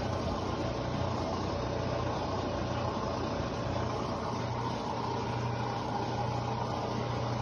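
Mabe washing machine's drain pump humming steadily but not pumping the water out: the pump has failed, so the machine makes the noise and does not drain.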